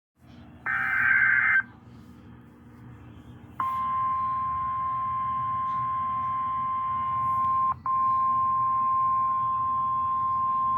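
Emergency alert broadcast on weather radio: a one-second burst of warbling digital header tones, then after a short pause the long, steady single-pitch NOAA Weather Radio warning alarm tone, which drops out briefly and resumes. A low radio hum runs underneath.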